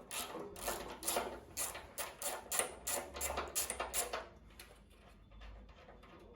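Ratchet socket wrench clicking in quick repeated strokes, about three a second, as it loosens the 10 mm nut on a washing machine's heater element. The clicking grows faint after about four seconds.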